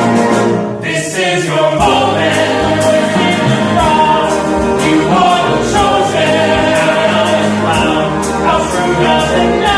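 A musical-theatre number sung by several voices together over a small live pit band, with drums keeping a steady beat.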